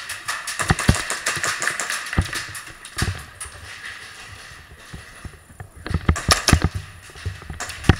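Airsoft guns firing during a close-quarters game: a fast run of sharp clicks and knocks in the first two seconds or so, then a louder cluster about six seconds in.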